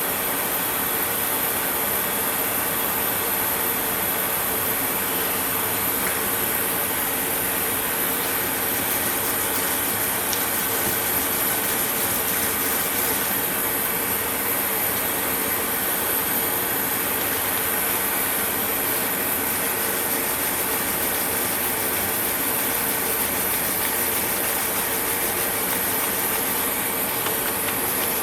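Steady, continuous sanding noise with a constant motor hum as the underside of a chromatic harmonica's mouthpiece slider is sanded to fit the mouthpiece.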